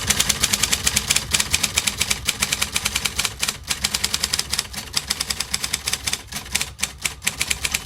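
Electric type-bar typewriter typed on fast: a rapid run of sharp type-bar clacks against the platen, roughly six to eight a second, over the steady hum of its running motor.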